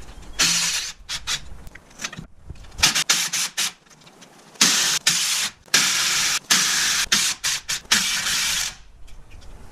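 DeWalt cordless driver with a 13 mm socket spinning out the bolts of a rear differential cover. It runs in a series of short bursts, then longer runs of about a second each.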